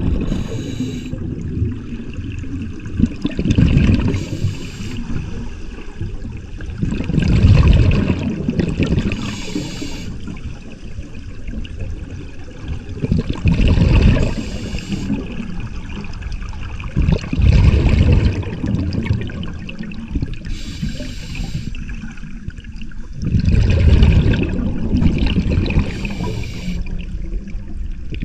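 Scuba diver breathing through a regulator underwater: a short hiss on each inhale and a burst of exhaled bubbles rushing past, repeating every few seconds.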